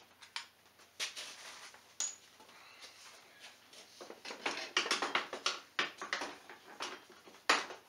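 Metal clinks and rattles of tools and bolts being worked on an ATV's frame: a few separate clicks in the first couple of seconds, then a denser run of clinks from about four seconds in, with a sharp clank near the end.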